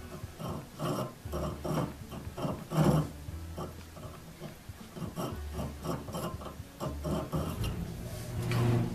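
Small three-cornered needle file rasping in short strokes, about two to three a second, across the threads of a steel auger bit's lead screw, cleaning up the thread track so it will cut into wood.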